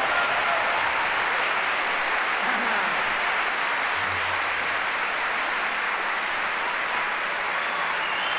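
Large audience applauding steadily at the end of a song.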